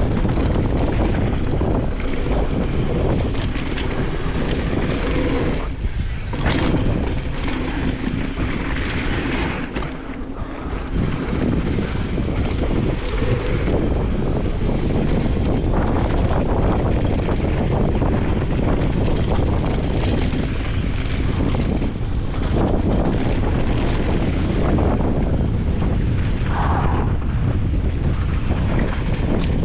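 Wind rushing over an action camera's microphone as a mountain bike rides downhill at speed, with the tyres rolling on dirt and many short rattles and clicks from the bike over bumps.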